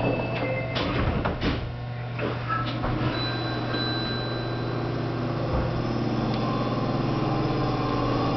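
Osaka Municipal Subway 66-series train's sliding doors closing, with a few sharp knocks in the first two seconds. Then the train's steady electrical hum with thin whining tones.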